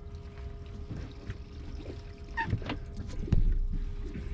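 Water sloshing around a small fishing boat over a faint steady hum, with a sharp knock about three seconds in.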